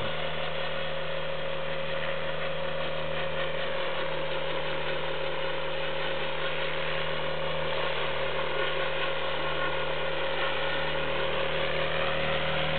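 Align T-Rex 600 radio-controlled helicopter in flight: its motor, gears and rotor blades run steadily at a constant pitch. The sound grows a little louder near the end.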